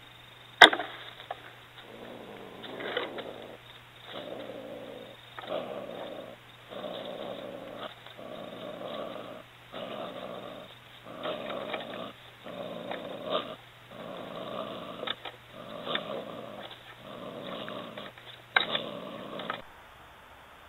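A Belisle 120 body-grip trap in a wooden coon box snaps shut with a sharp crack about half a second in. Then an opossum caught by the back of the head makes a dozen or so harsh rasping breaths or growls, about one every second and a half.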